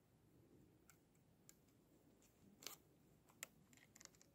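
Near silence with a few faint, scattered clicks from handling a 3D-printed grenade launcher replica.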